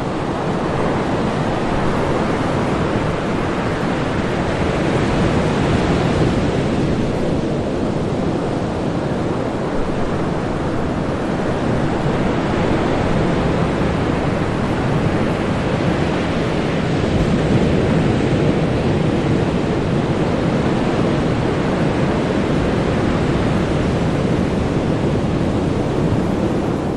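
Ocean surf breaking on a beach: a continuous wash of rushing water with slow swells as waves come in.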